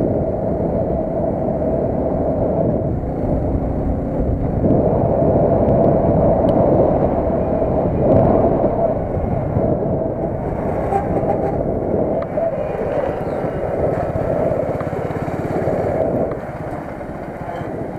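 Motorcycle engine running steadily on the move, getting quieter near the end.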